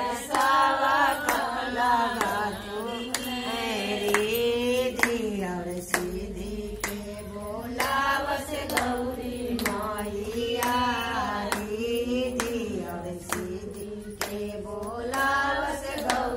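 Group of women singing a Hindi devotional bhajan together, unaccompanied, with steady hand-clapping about twice a second keeping the beat.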